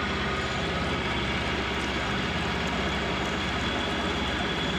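Milling machine running, its end mill cutting a notch into steel box section: a steady machine drone with a rapid, even pulsing from the cutter.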